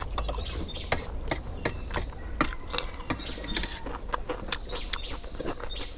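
Metal spoons clicking and scraping against metal trays in quick, irregular taps as rice is scooped up, over a steady high insect trill.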